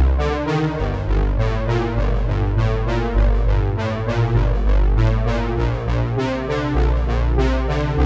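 Background music: synthesizer and electric-piano chords over a heavy bass line with a steady beat.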